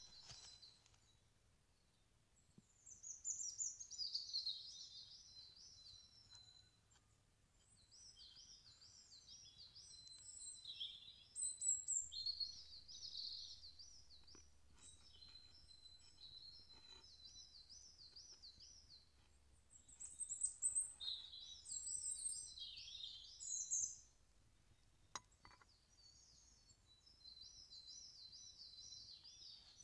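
Small songbirds singing in woodland: repeated high, rapid trilling phrases that come and go several times, heard faintly. A few soft taps sound along with them.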